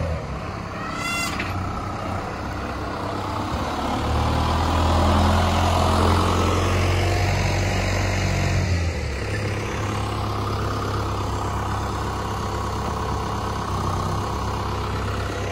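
New Holland tractor's diesel engine running steadily as its front loader works, growing louder for several seconds in the middle.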